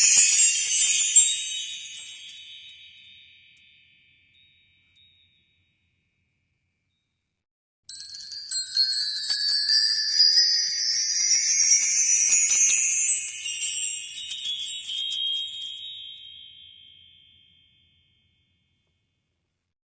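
Flashback transition sound effect: shimmering, twinkling chime-like tones sweeping upward in pitch. One fades out over the first few seconds; after a silence, a second one begins about eight seconds in, rising in repeated sweeps before fading away.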